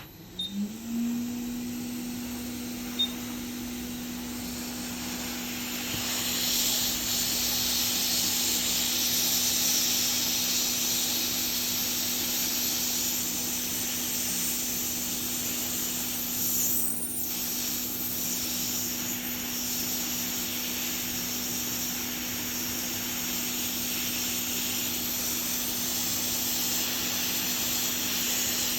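Hot air rework station's blower running with the air near maximum: a steady rushing hiss over a constant hum, the motor tone rising to speed about half a second in. A single small click comes about three seconds in.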